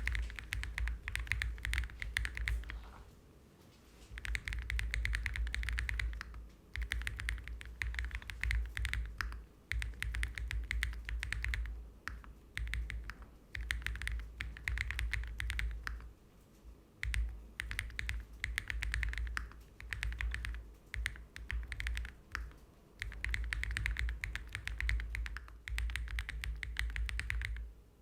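Typing on a Chaosera EAU gasket-mount mechanical keyboard with JWK Klein switches. The keystrokes come in quick runs of clicks lasting a few seconds, with short pauses between runs.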